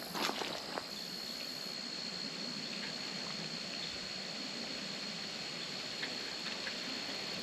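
Steady rushing of creek water, with a thin steady high tone above it and a few faint clicks in the first second.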